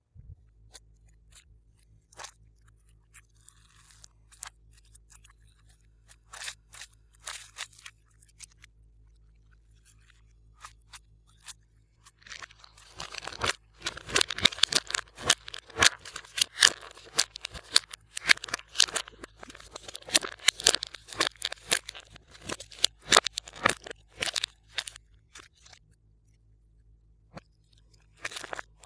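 Glossy slime being mixed and squished by hand, giving sticky clicks and pops. They come sparsely at first, then in a dense run for about twelve seconds in the middle, and thin out near the end.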